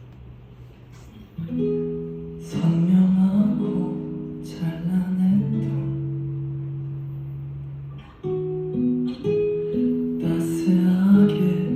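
Acoustic guitar playing an instrumental intro, with chords left ringing. It starts softly, then is strummed louder from about a second and a half in, with fresh strums every second or two.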